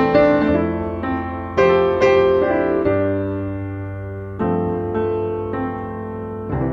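Background music: slow piano chords, a new chord struck every second or so and each left to ring and fade.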